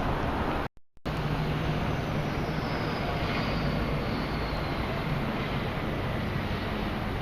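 Steady city traffic noise with a low hum and a faint falling whine partway through, broken by a sudden brief gap of silence just under a second in.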